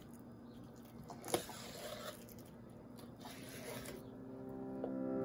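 Knife slicing a raw red snapper fillet away from the backbone on a plastic cutting board: faint wet cutting and scraping, with one sharp tick about a second in.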